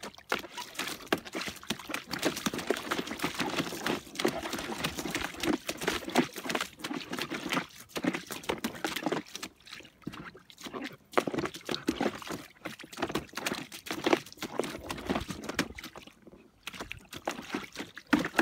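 Leonberger puppy pawing and splashing in shallow water in a plastic kiddie pool, in irregular bursts of splashes with brief pauses.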